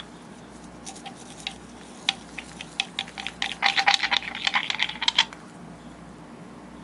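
Herb grinder built into a glass jar being handled and twisted: a few scattered clicks, then a dense run of rapid clicks for about two seconds that stops abruptly.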